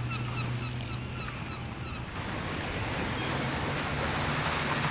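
Outdoor background noise: a steady low hum under a hiss that grows louder about two seconds in, with faint short chirps in the first two seconds.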